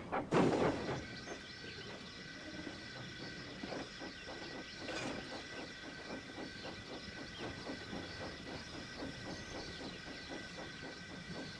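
Steam locomotive sound effects: a loud rush of steam just after the start, then regular chuffs over a constant steam hiss with a faint steady high tone.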